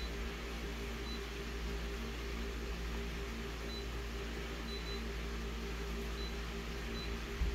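Office multifunction copier running with a steady fan hum, and short faint high beeps, about seven, as its touchscreen buttons are tapped.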